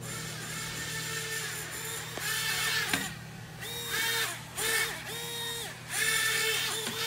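Blade Inductrix Switch's tiny ducted-fan motors whining as it drives as a hovercraft, spooling up and down in a series of short throttle bursts. There is a sharp tap about three seconds in.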